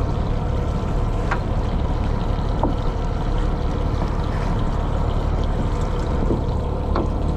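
Steady low rumble of a fishing boat's engine running, with a few faint clicks.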